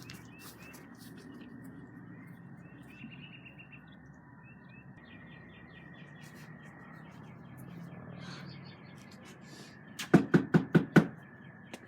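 Birds chirping faintly, then about ten seconds in, five quick sharp knocks on a door.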